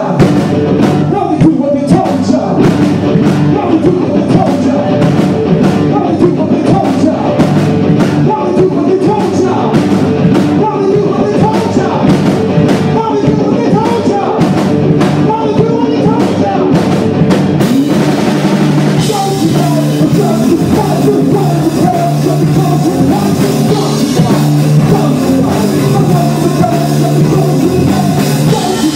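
Live rock band playing loud: electric guitars and a drum kit, with a singer's voice. The sound grows brighter and denser about two-thirds of the way in.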